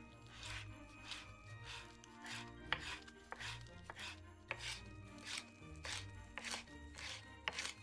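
Kitchen knife chopping fresh flat-leaf parsley on a wooden cutting board: a steady run of crisp knocks, about two strokes a second.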